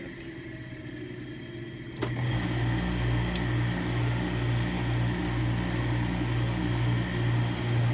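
Hose-fed steam iron pressing wool school trousers. About two seconds in, a steady steam hiss starts, together with a low hum from the pressing equipment that pulses about twice a second.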